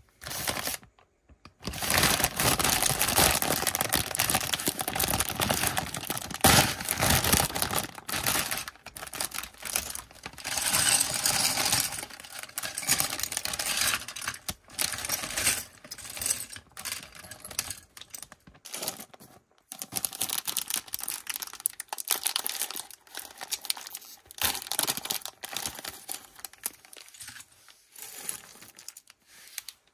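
Plastic Lego bricks rattling and clicking as they are handled, with a plastic parts bag crinkling. A dense run of rattling lasts about the first ten seconds, then scattered clicks follow.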